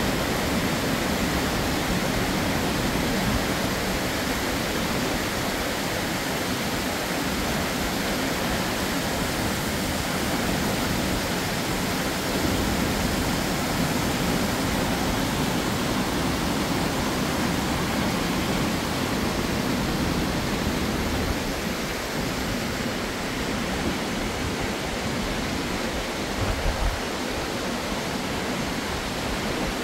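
A waterfall and the stream below it cascading over rocky boulders, giving a steady rush of water.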